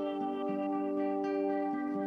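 Calm new-age ambient music: a slow melody of soft notes over steady held tones.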